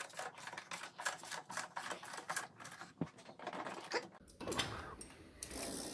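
Rapid, irregular ratchet clicking as the rear wheel goes back on. The clicking stops about four seconds in.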